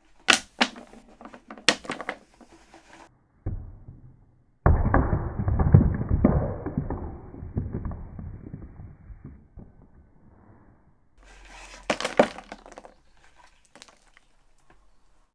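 Rubber and foam covering being pulled and cut off a steel steering wheel rim: a few sharp clicks, then about five seconds of dense crackling and scraping full of small knocks, then a few more clicks.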